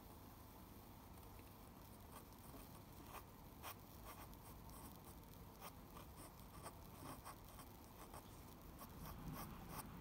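Dip pen's metal nib scratching faintly across paper in short, separate strokes, inking hatching lines. The scratches start about two seconds in and come more often toward the end.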